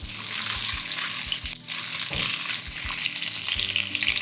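Boiled potato chunks frying in hot oil in a kadai, a steady sizzle that briefly drops out about a second and a half in.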